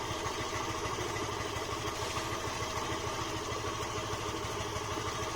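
Motorcycle engine idling steadily, an even, unchanging beat.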